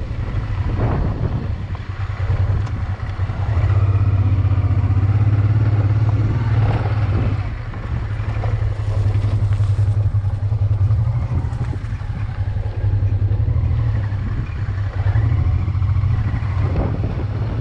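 Honda motorcycle engine running steadily while riding, with wind and road noise. The engine note eases off briefly about eight seconds in, then picks up again.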